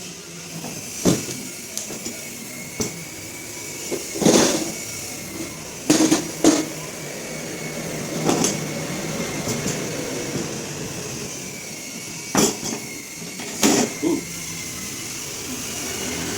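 A toolbox being handled: a series of irregular knocks and clacks, some in quick pairs, as its lid and contents are moved. A steady hum runs underneath.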